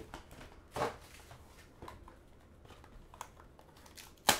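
Hands handling a shrink-wrapped trading-card box: a brief plastic rustle about a second in, a few faint taps, and one sharp snap near the end, the loudest sound.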